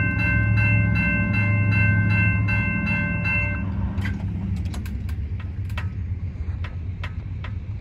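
Railroad crossing bell ringing about two and a half strikes a second, then stopping about three and a half seconds in as the crossing gates rise and the lights go out. Under it runs a low, steady train rumble that slowly fades, and a few sharp clicks follow once the bell stops.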